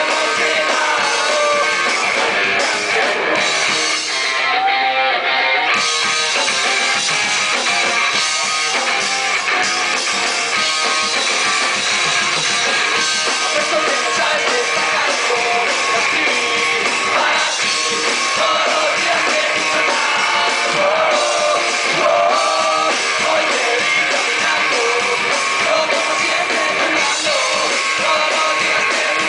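Punk rock band playing live: electric guitars, bass guitar and drum kit, loud and continuous.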